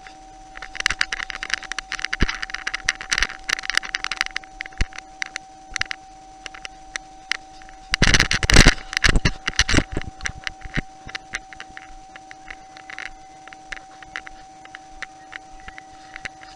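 Irregular crunching and clicking, like footsteps on gravel and rubble, in two louder spells, the second the loudest, over a faint steady electronic hum.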